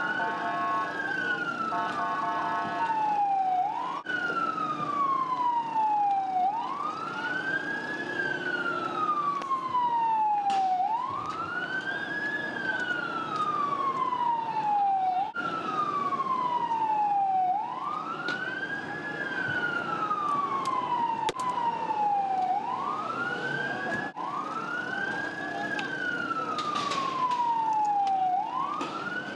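Palestine Red Crescent ambulance siren wailing, its pitch rising quickly and then falling slowly, over and over, roughly every four to five seconds. For the first few seconds a set of steady tones sounds along with it.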